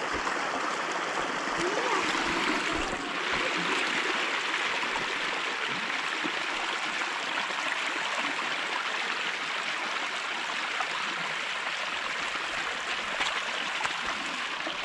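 Muddy water running steadily across a dirt track, pouring out through a breach in a channel bank.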